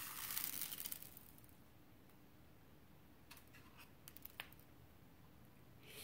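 Small finch seeds pattering and rustling into a clear acrylic feeder tray for about a second, followed by a few faint light clicks.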